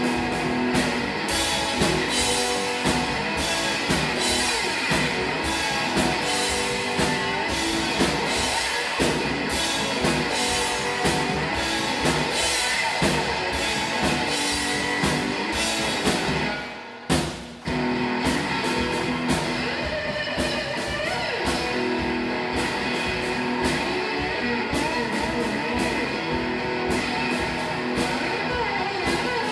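Live band of electric guitar and drum kit playing a rock number, a repeating guitar riff over steady drumming. The music drops out briefly a little over halfway through, then comes back in.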